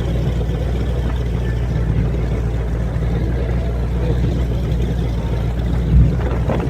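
Motorboat engine running steadily at a constant speed, with a brief low thump about six seconds in.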